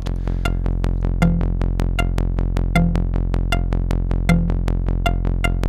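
A Eurorack modular synthesizer patch clocked by a Make Noise TEMPI module plays rapid, even clicking pulses, several a second, with short high blips on some of them. A low note comes in about every second and a half over a steady low hum.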